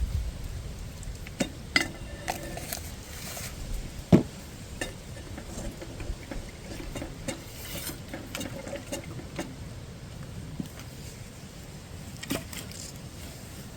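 Scattered clinks and knocks of cooking pots and utensils being handled, with stirring in between; the loudest knock comes about four seconds in.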